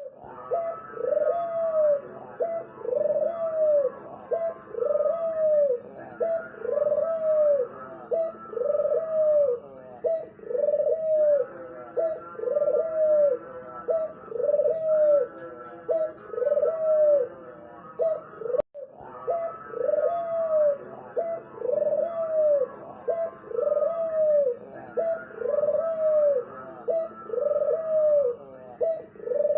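Spotted dove (tekukur) cooing over and over, a string of arched coo notes about one a second, with a brief cut about two-thirds of the way through.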